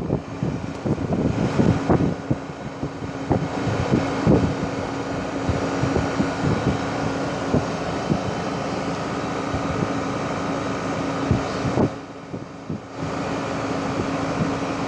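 2012 Rheem 4-ton heat pump running in cooling mode: a steady fan and compressor hum with one low steady tone. Scattered short thumps fall irregularly over it, and the sound drops for about a second near the end.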